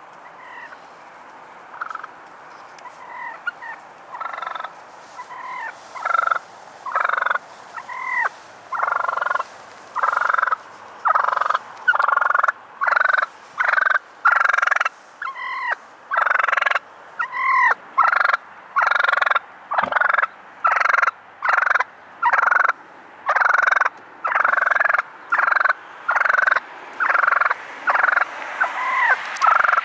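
Wild turkey tom gobbling over and over. The calls start faint, grow louder, and then come about once a second.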